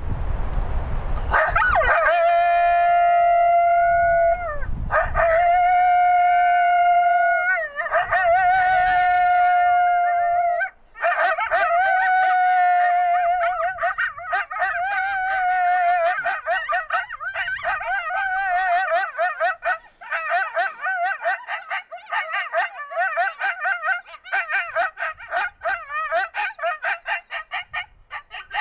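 Recorded coyote group howl played from a FoxPro Fusion electronic predator caller: three long, held howls, then from about eleven seconds in a chorus of wavering howls and quick yips.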